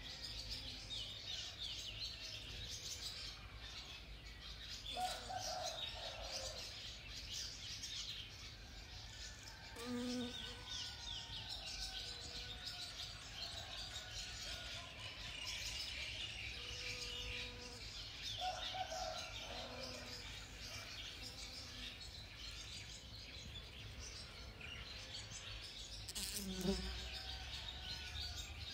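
Many small birds chirping at once in a steady, busy chorus. Now and then a brief lower sound stands out, the loudest near the end.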